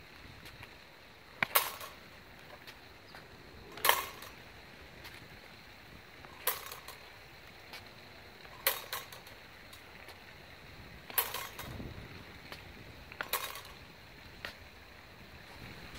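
Rapier blades clashing as cuts to the head are parried: a sharp metallic clink every two to three seconds, about seven in all, the last one softer.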